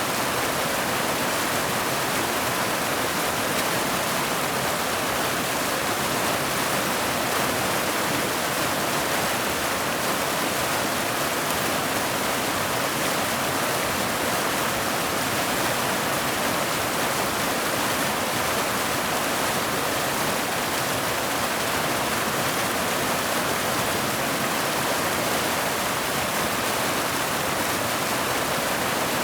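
Mountain waterfall pouring over boulders into a pool: a steady, even rush of water, hissy and bright, that never changes.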